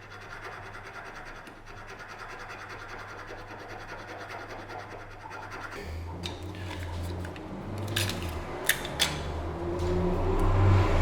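Abrasive scratching on the steel of a santoku knife, a fine, evenly repeating rasp over a low hum. About halfway through the sound changes to a louder low hum with a couple of sharp clicks.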